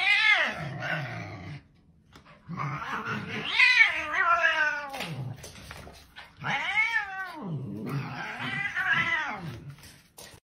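Cat yowling at a dog during a scuffle: a series of long, drawn-out calls that rise and fall in pitch, with low growling underneath and short pauses between the calls.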